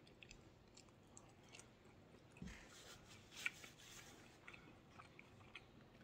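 Faint close-up chewing of sausage pan pizza: soft, wet mouth clicks and smacks. A brief rustle in the middle as a paper napkin wipes the mouth.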